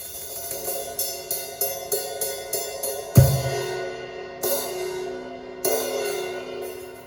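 Crash cymbal played with brushes: light taps about three a second, then a loud crash about three seconds in together with a low bass-drum thump. Two more crashes follow, each left ringing.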